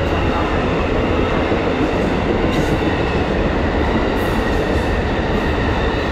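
Amtrak Silver Meteor stainless-steel passenger cars rolling past at close range, a loud, steady noise of steel wheels running on the rails.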